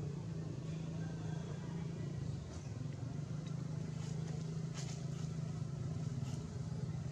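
A steady low motor hum, like a vehicle engine running, with a few short faint high ticks or chirps over it.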